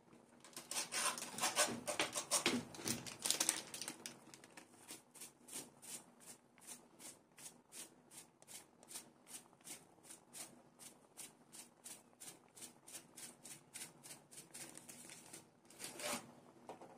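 A cardboard packet of chole masala handled with a loud papery rustle, then rattled in a steady rhythm of about three or four taps a second as the spice powder is sprinkled out, with more rustling near the end.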